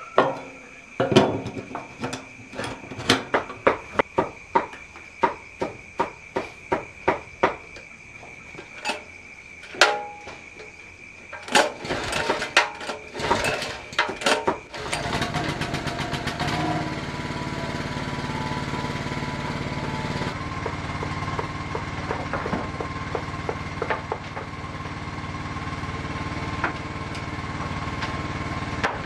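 A run of sharp knocks, at times about two a second, for roughly the first half. Then a small engine starts and runs steadily, shifting its speed a couple of times.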